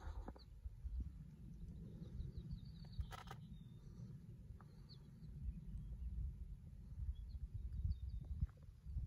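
Wind buffeting the microphone in uneven gusts, with faint, scattered high bird chirps and one short knock about three seconds in.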